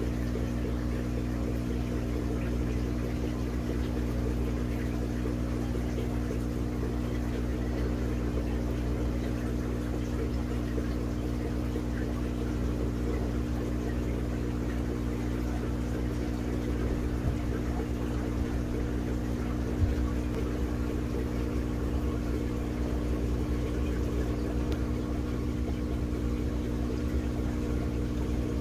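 Steady mechanical hum of running aquarium equipment, with a low rumble under it. Two brief clicks come about two and a half seconds apart, a little past the middle.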